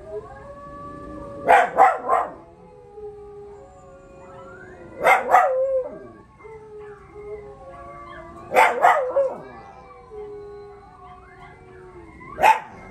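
Dogs howling together: several long overlapping howls gliding up and down in pitch, broken by four loud short cries spaced about three and a half seconds apart.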